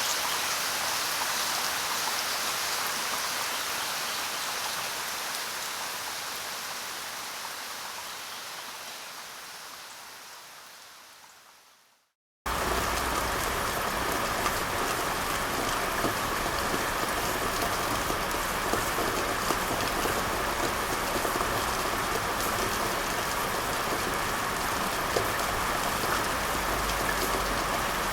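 Steady rain, which fades out gradually over about ten seconds to silence; after a brief gap a second, fuller rain recording cuts in abruptly and runs on steadily.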